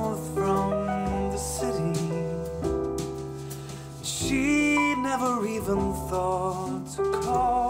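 A song with singing, played through a pair of Adam Audio T7V studio monitors and, a little before halfway, through a pair of KRK Rokit 7 G4 studio monitors. It is recorded by a Zoom H6 recorder in the room.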